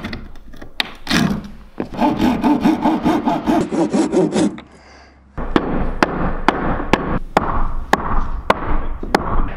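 Cordless drill driving screws into a wooden subfloor panel: a short burst, then a longer rattling whir lasting about three seconds. After a brief lull comes a steady run of light clicks, two or three a second.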